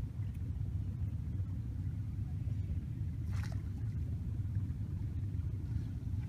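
Low, steady rumble of an idling boat engine, with a brief hiss about three and a half seconds in.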